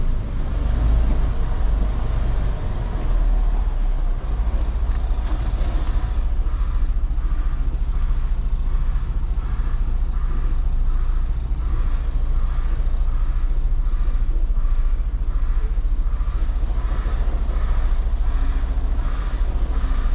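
Day-cab semi truck's diesel engine running at low speed, heard inside the cab. From about four seconds in there is a regular beep about once or twice a second: the reverse alarm as the truck backs up to a loading dock.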